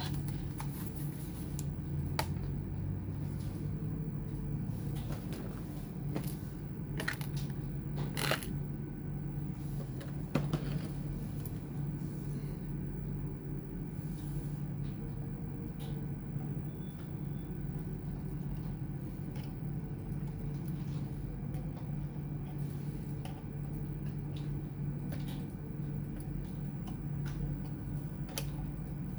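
Scattered light clicks and taps from hands handling a laptop and small tools, over a steady low hum.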